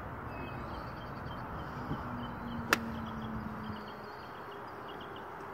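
Quiet outdoor ambience with faint repeated high chirping and a brief low hum. One sharp click comes about two and a half seconds in.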